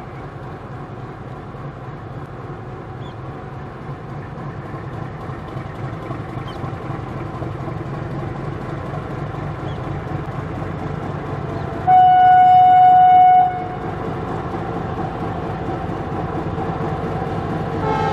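Meter-gauge diesel locomotive approaching, its engine drone growing steadily louder. About two-thirds of the way through it gives one loud horn blast of about a second and a half.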